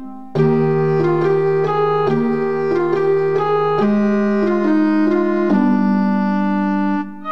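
Instrumental background music: a keyboard melody over held chords, with a brief break just after the start and again just before the end.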